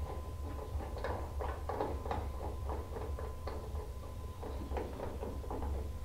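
Garden hose coupling being screwed by hand onto a water heater's brass drain valve: faint, irregular clicks and scrapes of the threads, over a steady low hum.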